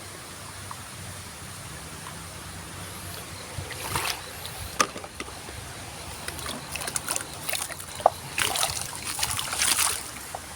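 Water splashing and dribbling as muddy plastic toys are washed, mixed with sharp plastic clicks and knocks as the toys are handled. The first few seconds hold only a low steady hum; the splashing and clicks begin about a third of the way in and continue until shortly before the end.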